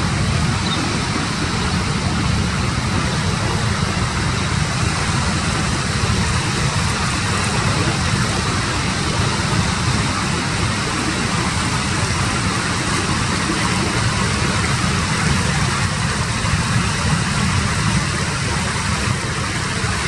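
Steady rush of breaking ocean surf, with a low rumble of wind on the microphone underneath.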